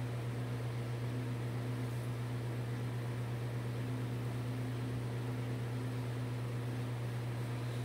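A steady low electrical hum with a few faint higher tones and an even hiss over it, like a running fan motor.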